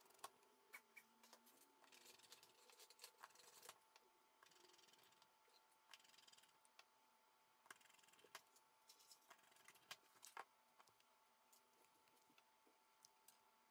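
Near silence broken by faint clicks and short scratching sounds: a precision screwdriver driving small screws into a Blackview BV5000 phone's rear housing during reassembly.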